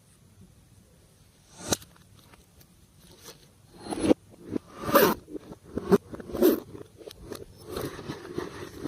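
Slime being squished and worked by hand: irregular sticky squelches and sharp pops, starting with a single click about a second and a half in and coming thicker toward the end.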